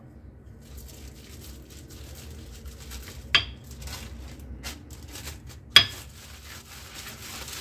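Plastic cling film crinkling and rustling as hands smooth it over a square of dough, with two sharp hard knocks: one a little over three seconds in and a louder one near six seconds.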